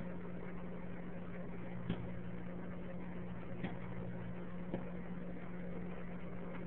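Microwave oven running with a steady hum while a bag of microwave popcorn finishes popping: a few sparse kernel pops, about two, three and a half and nearly five seconds in. The slowing pops mean the popcorn is almost done.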